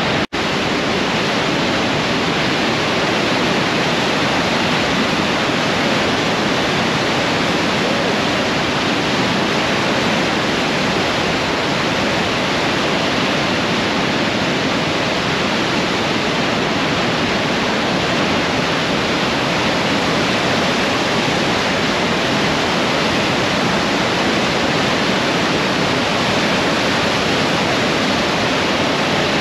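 Great Falls on the Androscoggin River, running high: a loud, steady roar of water rushing over the rock ledges and rapids. The sound drops out for an instant just after the start.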